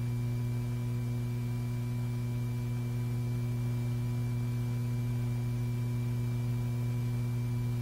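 Steady low electrical hum with faint hiss, unchanging throughout: the background noise of an old film soundtrack.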